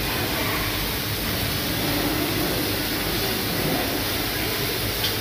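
Meat chops sizzling in oil on a hot flat-top griddle: a steady hiss.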